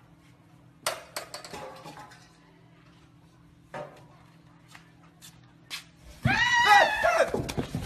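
A few sharp clicks and clattering knocks, then a loud, wavering, high-pitched cry that starts about six seconds in.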